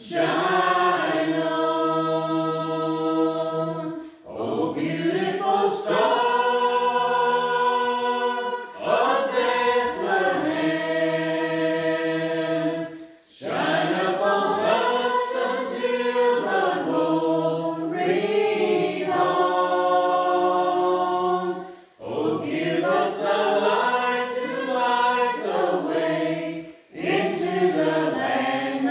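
A small mixed choir of men's, women's and children's voices singing a Christmas carol in sustained phrases, with short breath pauses between lines every few seconds.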